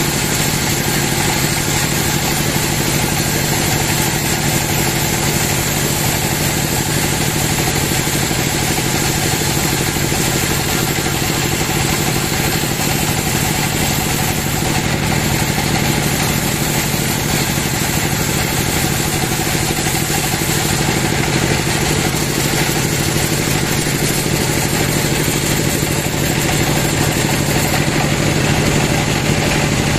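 Large band sawmill running steadily as its blade cuts lengthwise through a big teak log; a continuous loud machine sound with no pauses or changes.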